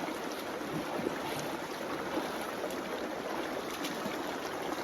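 Shallow creek water flowing steadily.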